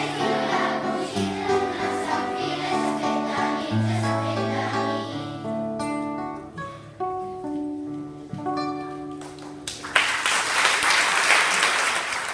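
A children's choir singing with instrumental accompaniment. The voices stop about halfway through, leaving a few held closing notes, and applause breaks out near the end.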